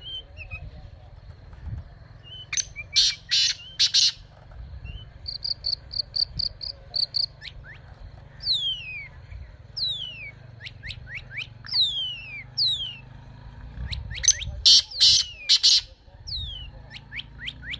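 A songbird calling and singing. It gives a few loud, harsh calls twice, a quick run of high even notes, and a long series of falling whistled notes.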